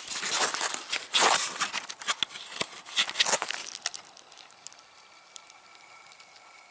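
Crackling and rustling of footsteps through dry leaves and brush for about four seconds, then it falls quiet.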